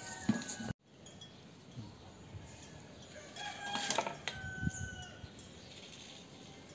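A few short chicken calls, bunched about three to five seconds in, over a faint rustle of dry twigs and grass being pushed into the fire opening of a mud rocket stove.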